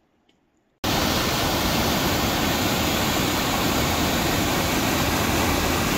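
Near silence, then about a second in, a waterfall's white water rushing down a narrow rocky chute starts abruptly: a loud, steady, even rush.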